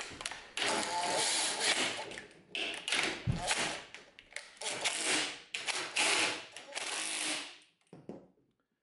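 Makita cordless impact driver hammering in several bursts as it runs down and tightens the half-inch bolts that hold the front end bracket on a garage door opener's chain rail. It stops about a second before the end.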